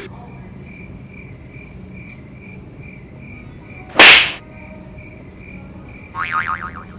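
A high, thin chirp repeating evenly about twice a second, broken about four seconds in by one very loud, sudden burst of noise, with a brief high wavering squeal near the end.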